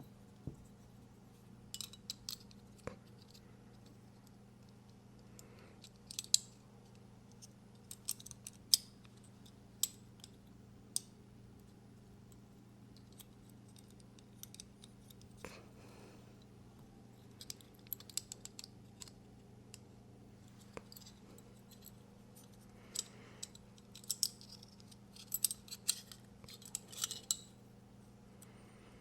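Scattered small metallic clicks and light taps of folding-knife parts and a small driver being handled, coming in short clusters with quiet gaps between them, over a low steady hum.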